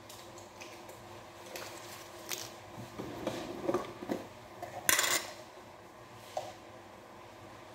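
Kitchenware being handled: scattered clinks and knocks of pots, lids and a glass jar, the loudest a sharp clatter about five seconds in.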